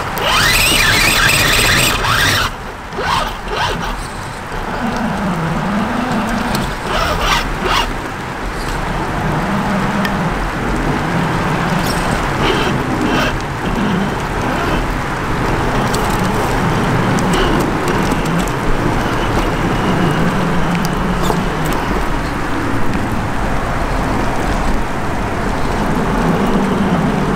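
RC rock crawler (Traxxas TRX-4 Sport chassis) driving through a stream: a steady electric motor and gear whine that rises and falls with the throttle, over water splashing and churning around the tyres. There is a burst of splashing in the first couple of seconds.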